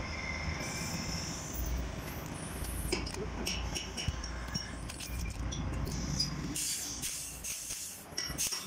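Small metal clinks over a steady low workshop hum. Near the end a corded electric wrench runs, driving bolts into a butterfly valve's worm gear housing.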